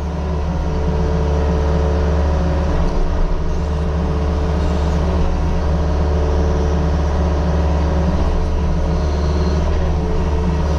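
Diesel engine of a compact earthmoving machine running steadily under load, a loud even rumble.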